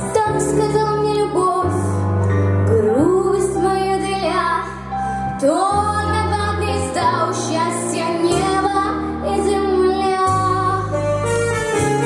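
A girl singing a slow song over an instrumental backing track. Her voice slides up into several long held notes above steady chords.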